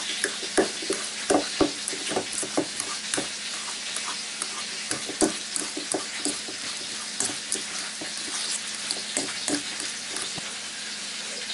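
Metal fork mashing ripe avocado in a stainless steel bowl: irregular clicks and scrapes as the tines strike the bowl, several times a second. A steady hiss runs underneath.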